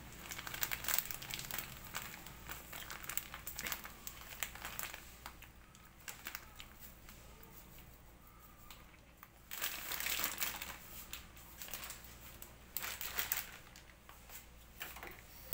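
Granulated sugar poured onto grated coconut in a wok: a crackly, rustling patter in spells. It is busiest in the first few seconds and again around ten and thirteen seconds in.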